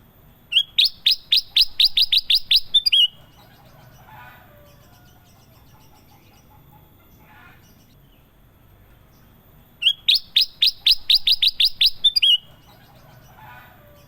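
Kutilang emas, a bulbul, singing two loud, rapid bursts of about a dozen sharp, high, falling whistled notes, each burst about two and a half seconds long. The bursts come about nine seconds apart, with faint lower chirps in the pauses.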